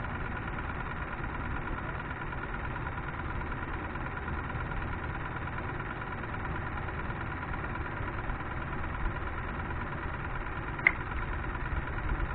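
Steady low motor hum with a steady high whine over it, and one sharp click near the end.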